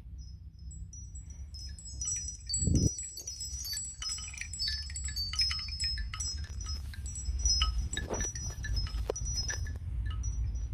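A Nokia X2-05 ringtone playing on a Nokia Asha 210 phone: many short, high, tinkling notes overlap like wind chimes and thin out near the end. A low thump comes a little under three seconds in.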